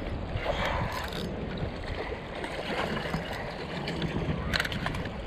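Wind noise on the microphone over the wash of a fast-flowing river at the bank, with a hooked shad splashing at the surface about four and a half seconds in.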